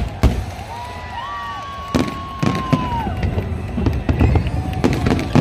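Fireworks going off in a run of sharp, irregular bangs over a low rumble, with a crowd's drawn-out cheering calls between them.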